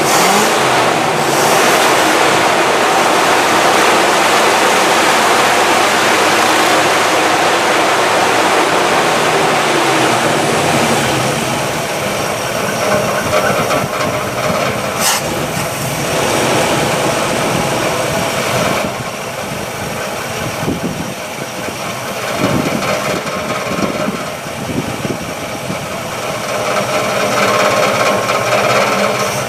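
1962 Chevrolet engine idling steadily while it warms up, a little low on idle speed. There is a single sharp click about halfway through.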